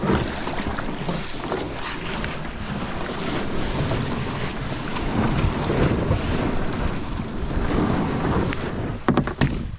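Wind buffeting the GoPro's built-in microphone over the wash of small waves on the shore, with a few sharp knocks near the end.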